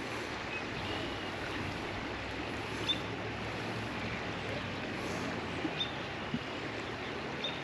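Steady outdoor rush of wind and moving creek water, with a few faint, short high chirps scattered through it.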